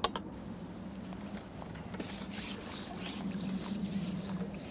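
A landing net scooping a skimmer bream from the water: a short splash at the start, then from about two seconds in a run of rapid spattering splashes as the net and fish come up and water pours from the mesh.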